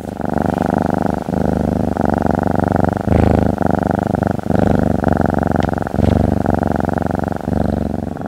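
Domestic cat purring loudly close up: a fast, even rattle in runs of one to one and a half seconds, each broken by a brief gap where the purr turns between breathing in and breathing out.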